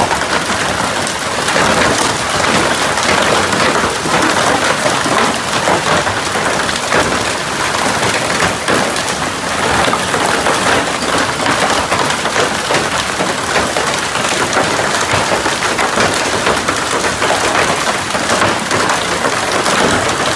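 Hail falling hard: a dense, steady clatter of countless small ice stones striking the ground, plastic wheelie bins and a parked pickup truck.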